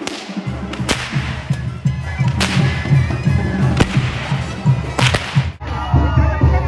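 Long braided whips (chicotes) being cracked, a sharp crack about every one and a half seconds, the last two in quick succession. Near the end the sound cuts to music and voices.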